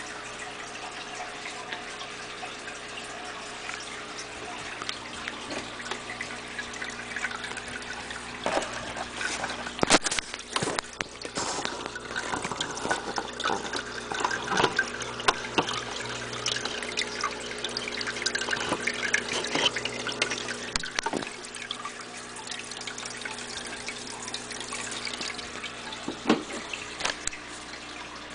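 Aquarium filter running: water trickling and splashing over a steady electric hum. From about ten seconds in, scattered knocks and clicks sound over it.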